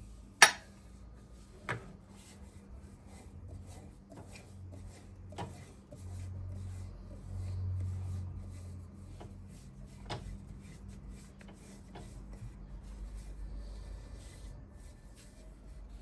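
Hand woodworking on walnut: a sharp wooden knock about half a second in, then a few lighter knocks and faint rubbing and scraping under a low hum.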